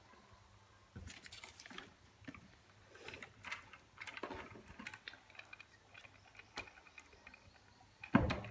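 Small taps, clicks and rustles of chocolate pieces being placed and nudged around on a plate. A louder knock near the end comes as the plate is gripped and moved on the table.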